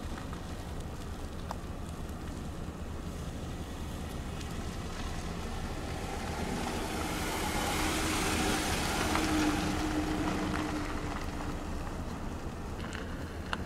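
Steady low rumble of a vehicle, with a swell of road noise from a passing vehicle that builds to its loudest about eight or nine seconds in, then fades.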